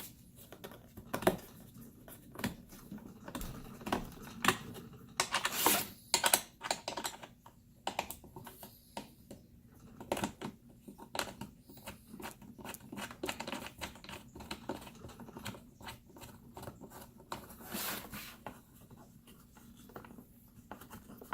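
A run of irregular light clicks and taps as metal leveling-foot screws are threaded into T-nuts in a wooden module foot by hand and Allen key.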